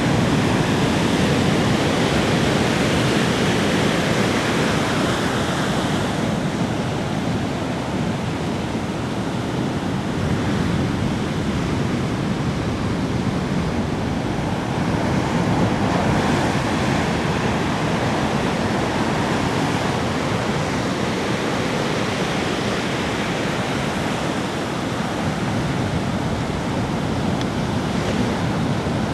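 Ocean waves breaking and washing on a beach, a steady rush that swells and eases every few seconds.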